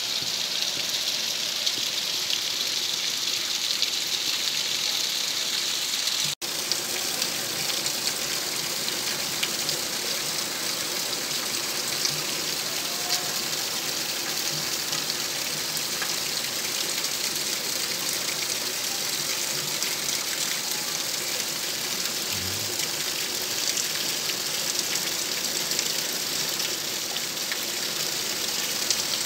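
Heavy rain falling steadily, a dense, even hiss on roofs and ground, with water gushing from roof spouts. The sound drops out for an instant about six seconds in.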